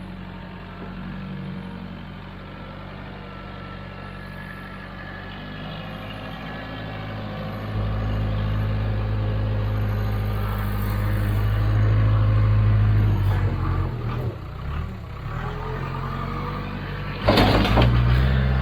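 Case 580K backhoe's diesel engine running while it digs, pulling harder and louder for several seconds midway, then easing off. A short loud burst of noise comes near the end.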